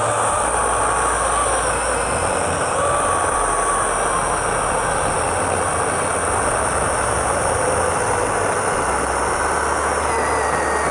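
12-inch cordless brushless electric chainsaw running without a break, its chain cutting through wood, with a wavering motor whine over steady rasping noise.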